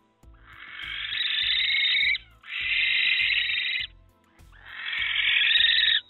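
Female barn owl screeching in distress: three long, harsh screeches, each swelling louder before it breaks off.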